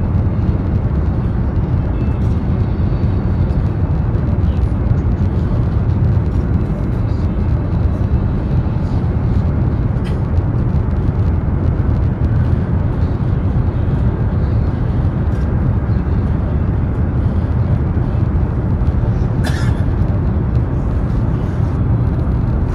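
Steady, even low rumble of a high-speed train running at speed, heard from inside the passenger cabin, with a few faint ticks.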